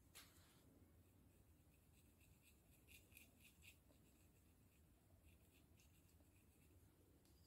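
Faint scratching of a fine-toothed plastic comb raking over a dry, flaky scalp in short strokes. There is a quick run of strokes about three seconds in and a few more near six seconds.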